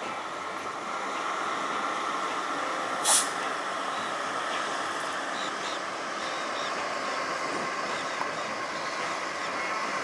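Steady street traffic noise, with a short, sharp hiss about three seconds in.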